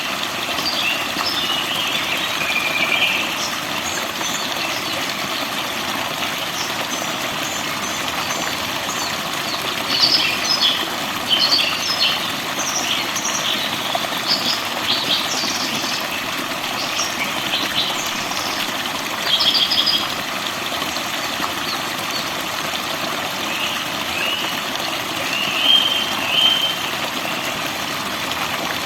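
Forest birds chirping and singing in short, scattered phrases over a steady rushing noise of running water.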